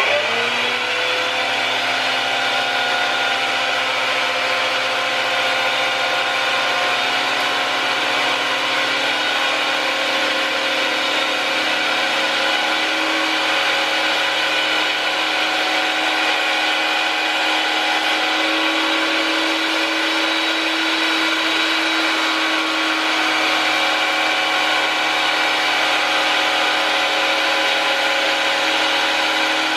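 Güde GADH 200 jointer-planer, with its 1250 W motor and two-knife cutterhead, switched on and coming up to speed in the first second, then running with a steady high whine. A board is being fed over the cutterhead to face it.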